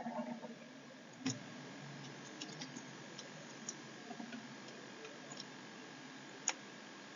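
Scattered small clicks over a quiet room hiss with a faint steady whine; the sharpest clicks come about a second in and near the end.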